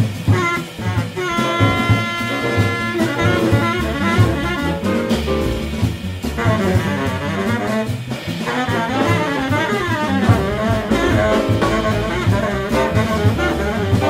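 Live jazz quintet: a baritone saxophone solos over piano, upright bass and drum kit. The saxophone holds one long note about a second in, then plays running lines.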